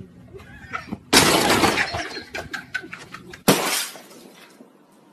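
Two sudden crashes, about a second in and again about three and a half seconds in, each followed by a rattling clatter that dies away.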